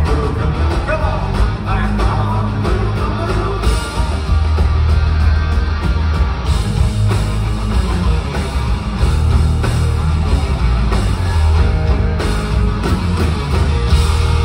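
Live rock band playing loudly, with heavy bass and a voice singing over it, as heard from the audience.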